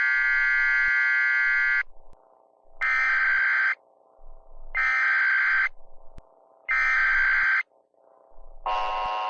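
Emergency Alert System data bursts: a long buzzy burst, then three short raspy bursts about a second apart. The bursts mark the start of an alert message. Near the end a steadier, lower-pitched alert tone begins.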